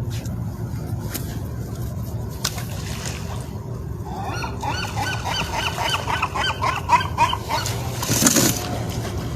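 A bird calling a fast run of short, repeated notes from about halfway in, over a steady low rumble, with a brief noisy burst near the end.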